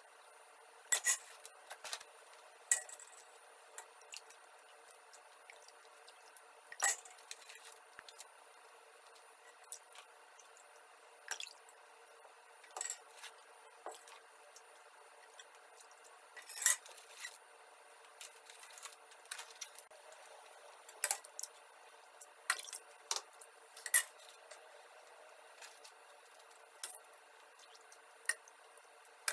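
Metal ladle clinking against a steel pot and a metal tray as sweetened milk is scooped and poured over güllaç sheets: sharp clinks every few seconds, some louder than others.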